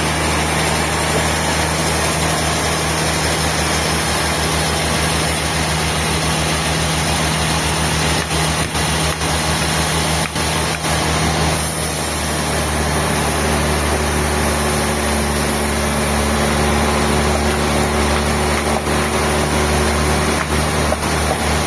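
Sawmill machinery running steadily with a loud mechanical hum, its sound shifting about halfway through.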